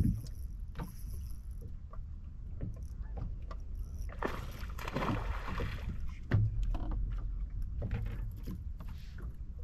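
Water sloshing against a boat, under a steady low rumble, with scattered small knocks, a louder wash of water about four to six seconds in and a sharper knock just after it.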